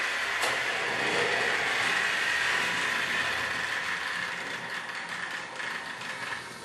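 Trix Express H0 model trains running on the track: a steady mechanical whir of small motors and wheels with a high whine, and a sharp click just after the start, the sound fading over the last couple of seconds.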